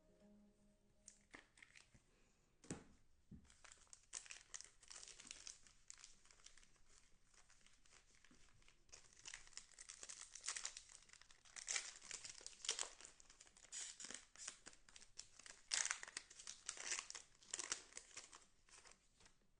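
Trading-card pack wrapper being torn open and crinkled, with cards being handled: irregular crackling and rustling that starts about a second in and grows busier and louder in the second half.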